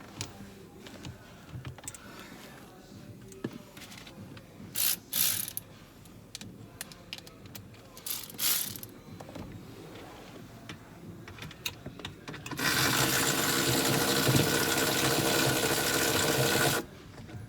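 Ratchet wrench driving bolts: a couple of short ratcheting bursts, then a steady, louder run of about four seconds that stops suddenly near the end.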